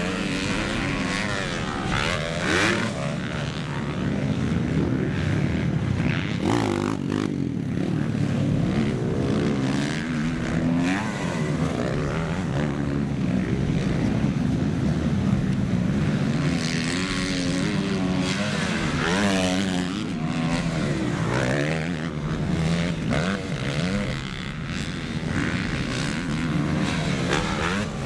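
Motocross bikes racing on a dirt track, their engines revving up and dropping off again and again, one bike's rising pitch overlapping another's.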